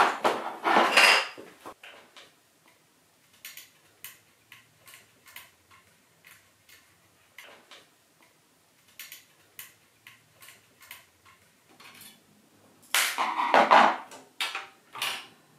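Light metallic clicks and ticks as a screwdriver turns out the small screws holding a graphics card's metal front bracket, with louder metal-on-metal clatter about a second in and again near the end.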